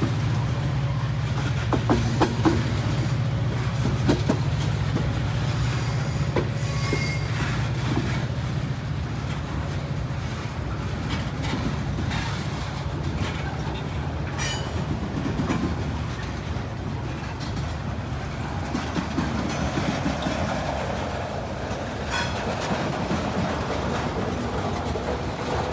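Loaded freight cars rolling past at low speed, a steady rumble of steel wheels on rail with scattered clicks and knocks from the rail joints and couplers.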